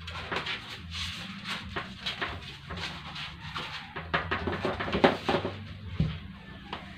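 Blood pressure cuff being pulled off the arm and handled: a crackling, rustling run of fabric and hook-and-loop fastener noise, loudest about five seconds in, then a single thump about six seconds in, over a low steady hum.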